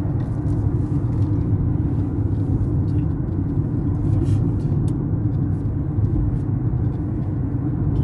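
Steady road and tyre rumble of a car driving along, heard from inside the cabin, with a few faint light ticks.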